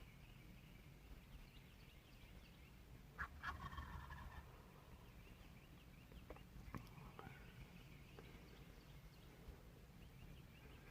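Osceola wild turkey tom gobbling, one rapid rattling gobble about three seconds in and a shorter call near the middle, against near-quiet woods.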